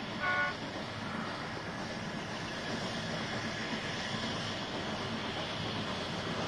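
YD-class metre-gauge steam locomotive approaching with a train: a steady rumble of engine and wheels. A brief high chord of tones sounds just after the start.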